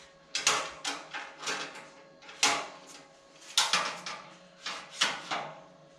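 Metal clicks and clunks of a Dell ReadyRails sliding server rail being slid and pushed against a threaded rack post: about a dozen sharp knocks at irregular intervals, the loudest about two and a half and three and a half seconds in. The rail does not latch into place because it is too short for the rack's depth.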